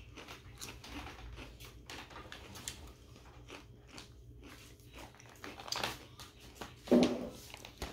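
A person biting and chewing ridged potato chips (Lay's Shrimp and Seafood flavour), a run of short crisp crunches throughout, with one louder brief sound near the end.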